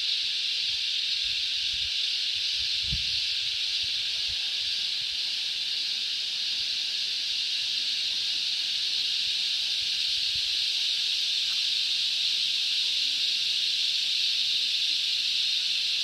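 Cicadas chorusing in rainforest trees: a continuous, steady high-pitched drone.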